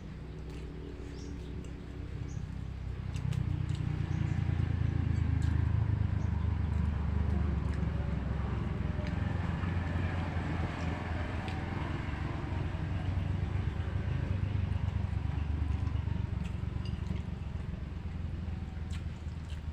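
A low engine rumble, as of a vehicle going past, building about three seconds in and slowly fading, with small bird chirps above it.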